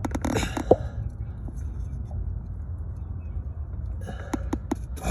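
Short sharp clicks and ticks of hands and tools working at a stuck plastic wiring connector on a C10's ignition parts, in two clusters, one near the start and one near the end, over a steady low rumble.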